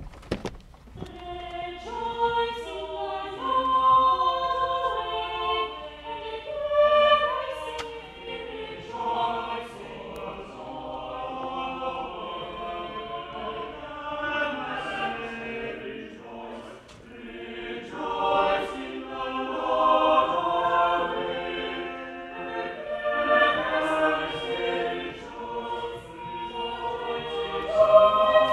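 A church choir singing a slow choral piece in parts, starting about a second in, with a short breath between phrases about halfway through.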